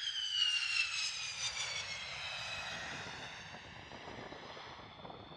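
F-15 fighter jet's twin jet engines whining as it rolls past on the runway, the whine falling steadily in pitch over the first couple of seconds over a low rumble, then fading away.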